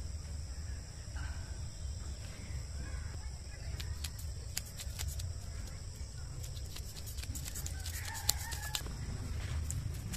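Large knife scraping the scales off a whole katla fish in quick, repeated strokes, starting about four seconds in.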